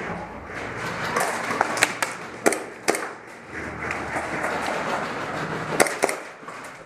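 Airsoft guns firing scattered single shots, sharp snaps in a cluster between about one and three seconds in and a quick pair near the end, over a steady rustling noise.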